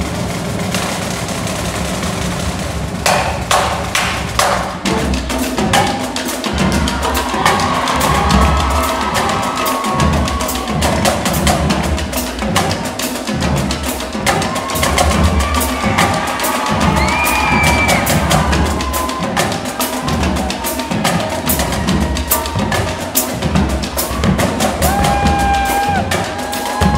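High school marching drumline of snare drums, tenor drums and bass drums playing a cadence: a few sharp stick clicks about three seconds in, then the full line with the bass drums keeping a steady beat under rapid snare and tenor strokes from about five seconds on.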